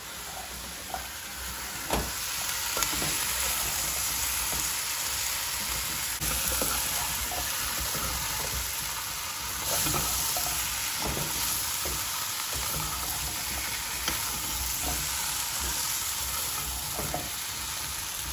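Potatoes, carrots and okra sizzling as they fry in oil in a nonstick pot, stirred with a spatula that scrapes and knocks against the pot now and then.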